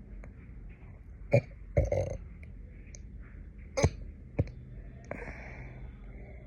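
A person hiccuping: a few short, sharp hiccups, the clearest about two and a half seconds apart, with a breath between them.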